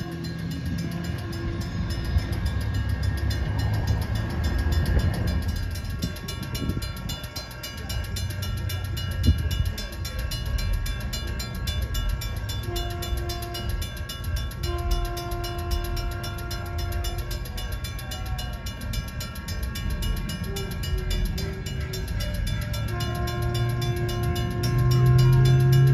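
Sprinter diesel multiple unit (Siemens Desiro railcar) approaching a grade crossing, its engine rumbling low and growing louder near the end. It sounds its horn in a series of blasts: a short one about halfway through, a long one just after, and another long one held near the end, the warning for the crossing.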